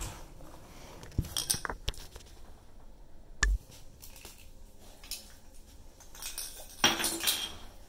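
A metal toilet supply tube and tools being handled: a few light metallic clicks and clinks, a sharper knock about three and a half seconds in, and a brief rustling scrape near the end.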